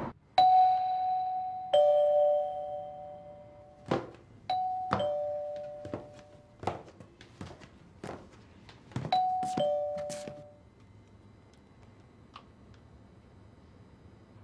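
Two-tone doorbell chime ringing ding-dong, a high note falling to a lower one, three times over, with scattered thumps in between.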